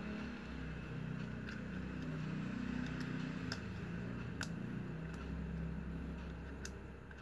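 A steady low rumble, with a handful of sharp, scattered clicks from a plastic strap being handled and threaded by hand.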